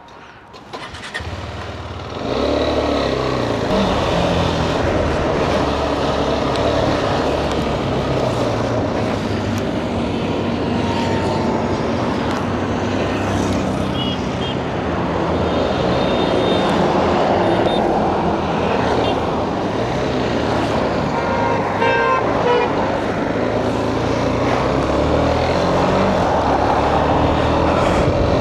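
A motorcycle engine starts up about two seconds in and pulls away, its pitch stepping up and down as it runs through the gears. A short horn toot sounds about twenty-two seconds in.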